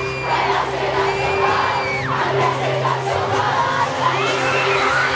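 Live pop band playing steady held chords while a crowd of fans screams and sings along.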